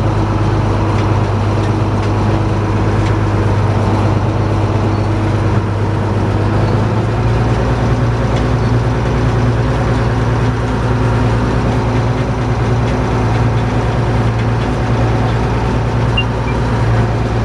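Tractor engine running steadily under PTO load, driving a New Holland 650 round baler as it tries to start a bale in dry crop. About seven seconds in, the engine note drops slightly and grows heavier.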